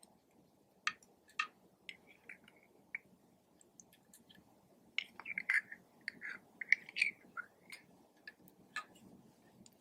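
Clear slime squished and kneaded by hand, giving scattered small wet clicks and pops, busiest from about five to seven and a half seconds in.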